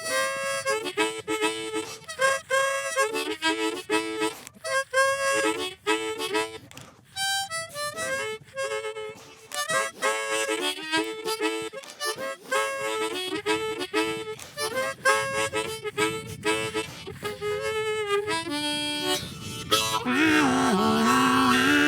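Solo harmonica playing an instrumental opening in quick, choppy notes and chords, turning about twenty seconds in to fuller, held chords with wavering pitch.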